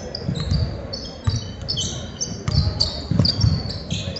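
A basketball bouncing on a gym floor in irregular dribbles, mixed with short, high sneaker squeaks.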